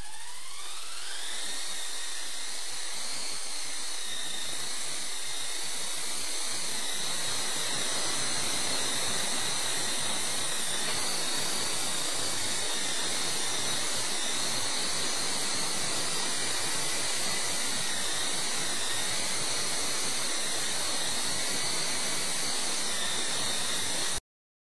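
E-sky Co-Comanche coaxial RC helicopter's electric motors spinning up with a rising whine over the first second or two, then running at a steady high whine with rotor hiss. The sound cuts off suddenly near the end.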